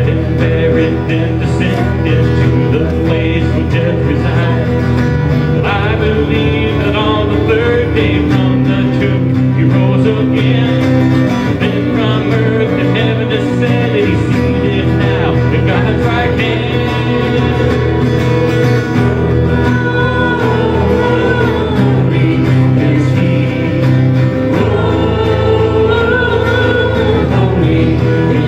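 Praise-and-worship music from a church band: guitar-led song with singing.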